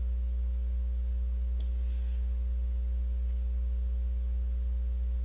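Steady low electrical hum with fainter constant tones above it, on the narrator's microphone recording, and one faint click about one and a half seconds in.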